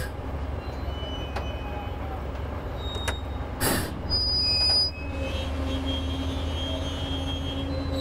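A 225-ton crawler crane's engine running steadily under load as the crane works, with thin high metallic squeals from the machine and a short sharp burst of noise about three and a half seconds in.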